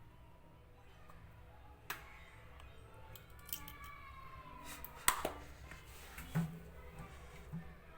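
Hands working at a front-loading washing machine's plastic drain-pump filter: a few sharp clicks and knocks, with a squeak in the middle as the filter is handled.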